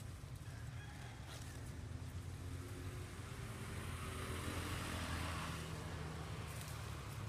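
A motor vehicle passing on the road, its engine hum and tyre noise swelling to a peak about five seconds in and then fading.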